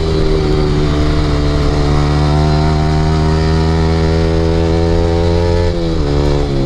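Yamaha R15 V3's 155 cc single-cylinder engine running through an aftermarket Akrapovic exhaust at steady revs while riding, with a brief dip in pitch about six seconds in.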